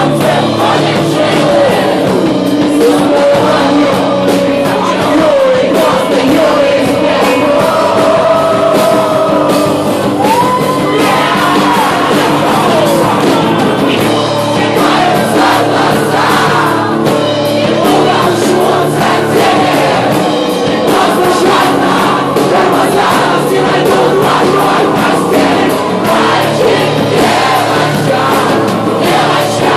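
Live acoustic rock song played by a band, with a lead singer's voice carrying the melody over a steady accompaniment.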